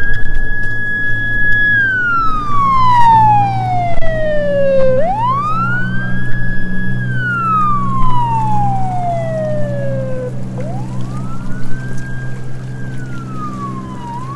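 A siren wailing. Three slow cycles about five seconds apart each rise, hold at the top and then fall, and the third is fainter. A steady low hum runs underneath.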